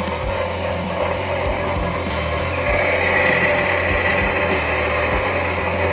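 Vertical band saw cutting through a stainless steel mandrel-bent exhaust tube: a steady running hum with a harsher, higher cutting sound that grows louder about three seconds in.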